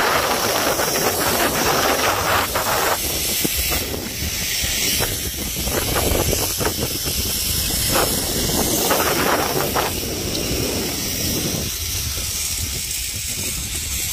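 Rushing wind on the microphone and the zipline trolley whirring along its steel cable during a ride, a steady loud hiss that thins slightly near the end.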